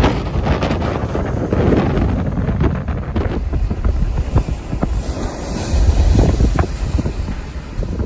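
Storm wind gusting past 50 mph and buffeting the microphone with a heavy low rumble, swelling again around six seconds in, over waves breaking against the Hudson River wall and throwing up spray.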